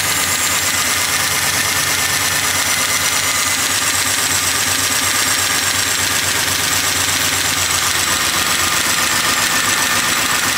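Small-block Chevy 406 V8 idling steadily with the valve cover off and the rocker arms and valve springs exposed. The engine has a tapping noise once warm, which the owner traces to the cylinder one exhaust rocker arm.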